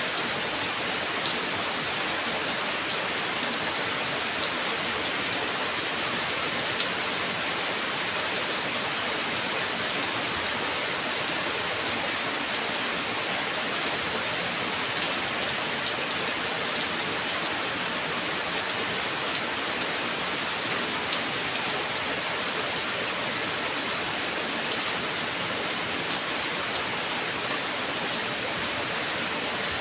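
Heavy rain falling steadily, with the hiss of the downpour and many individual drops ticking on surfaces.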